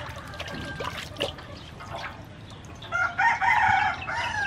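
Water splashing and sloshing in a metal basin as a whole fish is rubbed and rinsed by hand. About three seconds in, a rooster crows once for about a second and a half, louder than the washing.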